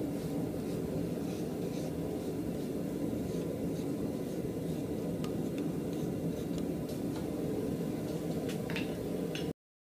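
Steady low rushing of a small coal forge's air blower, with a few faint light clinks. It cuts off abruptly near the end.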